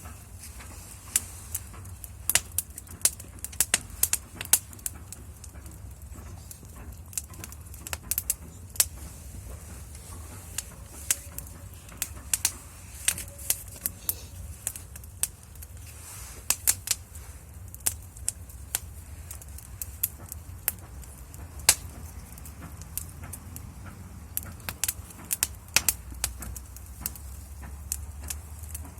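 Wood fire crackling: irregular sharp pops and snaps, one to three a second and uneven in strength, over a steady low hum.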